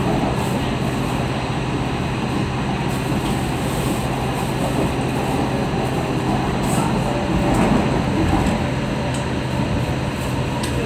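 Steady running noise of a moving train heard from inside the carriage, with a steady low hum underneath.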